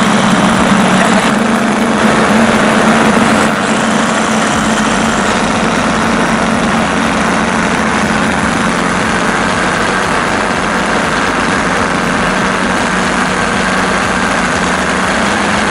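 O.S. 25 two-stroke glow engines of a four-engine B-17 radio-controlled model idling steadily on the ground. The sound is a little louder for the first three and a half seconds, then settles.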